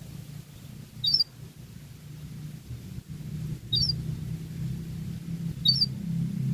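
Domestic canary giving three short, high chirps, each with a quick up-and-down flick of pitch, about two seconds apart, over a steady low hum.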